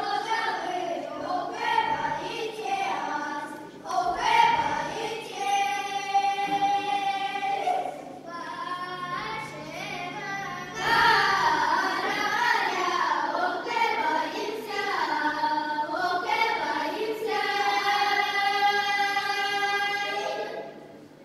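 Children's folk ensemble singing a Russian folk song together, the phrases ending in long held notes; the singing stops near the end.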